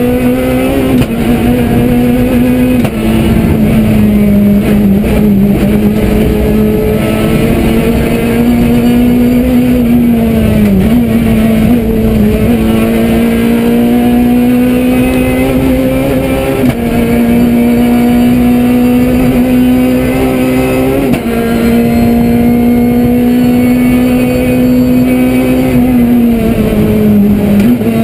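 Rally car's engine running hard at high revs, heard from inside the cabin over steady road noise. The engine note holds high and climbs slowly, dipping briefly about eleven seconds in and again near the end.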